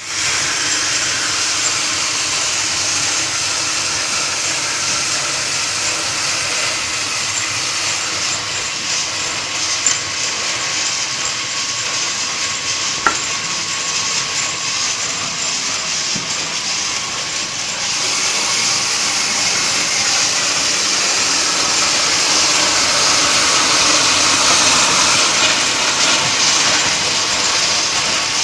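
Handmade lightweight-brick cutting machine running, a steady hissing noise with a thin steady tone under it. There is one sharp click about halfway through, and the sound grows louder about two-thirds of the way in.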